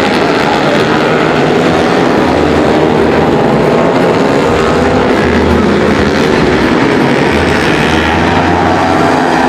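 Several tuned Honda CRF150L supermoto bikes, single-cylinder four-strokes bored out to 180cc, racing with engines revving, many engine notes overlapping and rising and falling in pitch.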